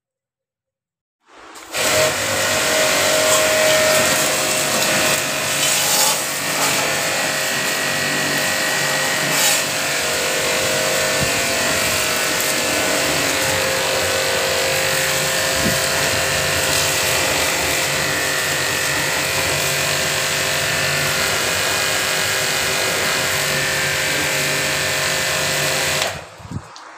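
Pressure washer spraying water over a motorcycle: a steady hiss of spray with a motor hum. It starts about a second and a half in and cuts off shortly before the end.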